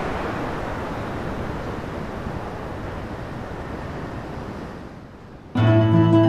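A steady rushing noise that slowly fades over about five seconds, then plucked-string music starts suddenly near the end.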